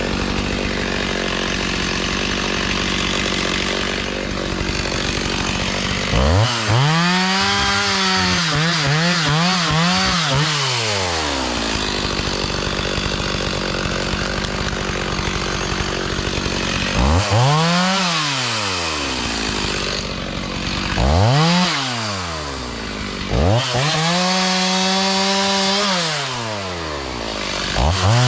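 Two-stroke chainsaw running, its engine throttled up to high revs and back down several times, with stretches of steady, rougher running in between.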